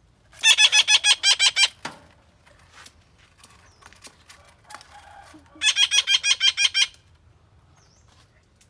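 A bird calling in two bursts of rapid, evenly repeated harsh notes, about nine a second. The first burst comes about half a second in, the second about two-thirds of the way through.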